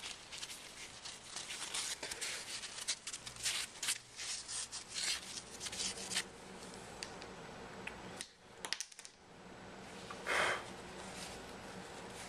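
Close-up rubbing as a Samsung Galaxy S3's exposed LCD is wiped clean: a quick run of short, scratchy strokes for about six seconds, then a few light clicks and one brief louder rustle about ten seconds in.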